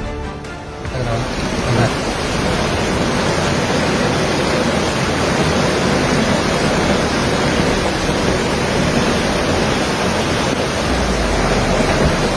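Torrential storm rain and wind, a loud steady rushing hiss that comes in about a second in, mixed with the rush of floodwater through a flooded street.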